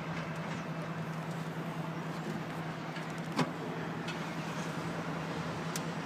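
Steady drone of an aerial ladder truck's engine and hydraulics running, with one short click about three and a half seconds in.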